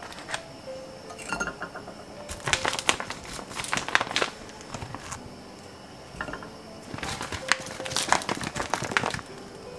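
Patties laid into hot oil in a frying pan, two of them a few seconds apart. Each is followed by about two seconds of oil crackling and spitting.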